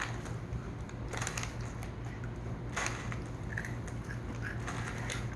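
Food being bitten and chewed close to the microphone, with a few short crunches spaced about a second and a half apart over a steady low hum.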